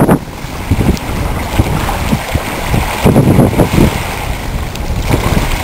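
Wind buffeting the microphone in irregular gusts over the sea washing among slushy ice floes, the gusts strongest about three seconds in.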